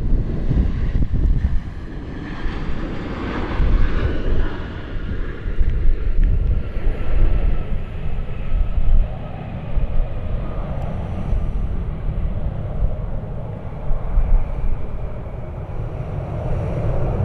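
Airliner engines on a landing pass, with a whine that slides down in pitch a few seconds in. Heavy gusting wind rumbles on the microphone throughout.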